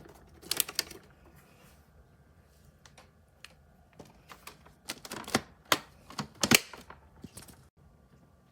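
Irregular sharp clicks and rustling scrapes of objects being handled: a short cluster about half a second in and a busier run between about four and seven seconds, over a faint steady hum.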